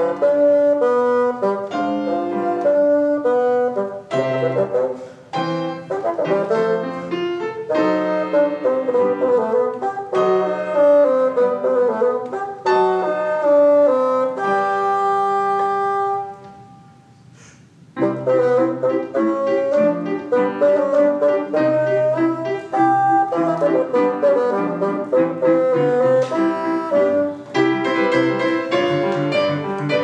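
Bassoon with piano accompaniment playing a lively classical concerto movement. The music stops briefly a little past halfway, then both instruments come back in.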